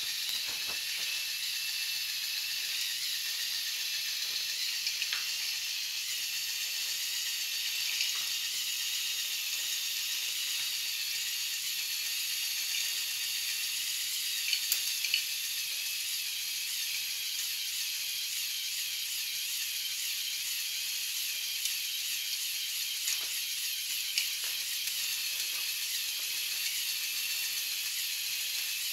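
LEGO Technic 42055 bucket wheel excavator running on its Power Functions XL motor: a steady high-pitched whir of the motor and plastic gears, with a few light clicks near the middle.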